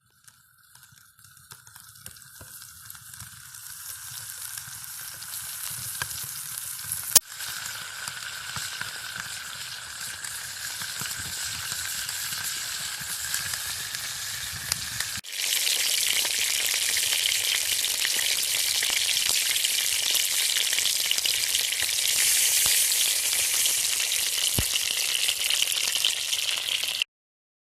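Beef rolls frying, a steady sizzle that builds up over the first several seconds, with a sharp click about seven seconds in. About halfway through the sizzle jumps louder and brighter and holds steady until it cuts off near the end.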